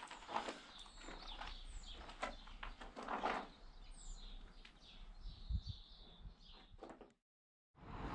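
Small birds chirping outdoors, with a few soft scuffing noises about a second apart. The sound cuts out abruptly near the end.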